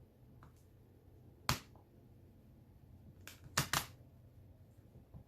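Vinyl wrap film being handled and laid onto a snowmobile side panel: a few short, sharp snaps and crackles, one about a second and a half in and a quick cluster of three around three and a half seconds, over quiet room tone.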